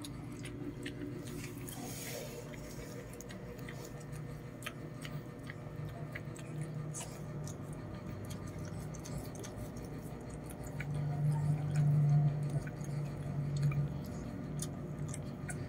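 Lhasa Apso mother licking and chewing at her newborn puppy: a run of small wet clicks and smacks. A low hum swells for a few seconds near the end.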